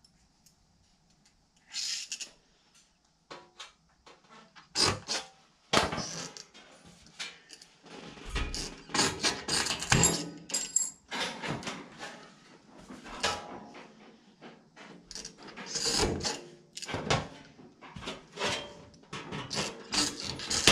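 Hand tin snips cutting galvanized sheet metal, with the sheet rattling and flexing as it is worked. The cutting is a run of sharp, irregular snips that starts about five seconds in.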